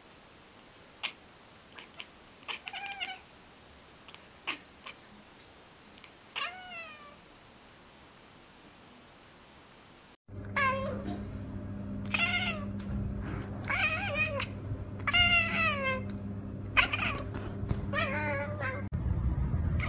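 Domestic cats chirping and chattering. First come scattered soft clicks and a few short falling chirps. From about halfway, a second cat makes a louder run of repeated chirping calls over a steady low hum.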